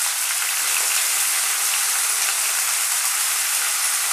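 Parboiled broccoli florets sizzling in hot oil in a steel kadai: a steady hiss with fine crackling.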